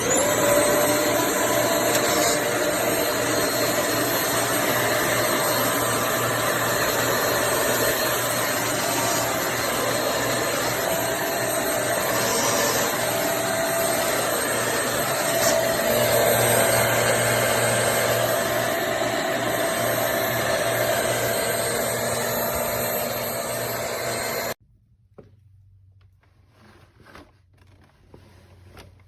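Hoover MAXLife Elite Swivel bagless upright vacuum cleaner switched on: its motor spins up with a rising whine, then runs steadily with a loud rushing of air. It stops suddenly near the end.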